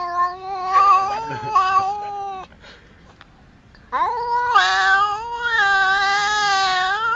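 Domestic cat yowling: two long drawn-out cries at a steady pitch, the first trailing off about two and a half seconds in and the second starting about a second and a half later.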